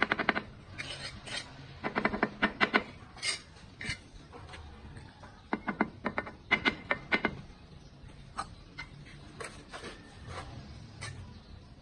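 Steel bricklaying trowel tapping hollow clay bricks down into their mortar bed: quick runs of sharp, ringing taps in three bursts, with scattered single knocks and scrapes between.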